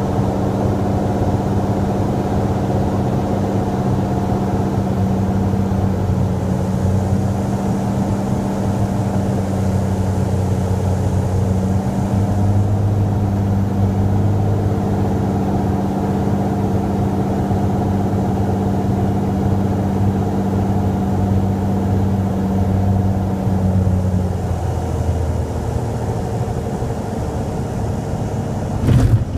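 Cirrus SR22T's turbocharged six-cylinder engine and propeller droning steadily, heard inside the cockpit on final approach. Part of the tone falls away about four-fifths of the way through as power comes back for the landing, and a brief thump comes near the end.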